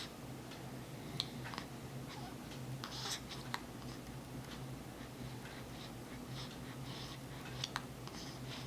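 A pet's small mouth and breathing noises close to the microphone: scattered soft clicks and short snuffles at uneven intervals, over a steady low hum.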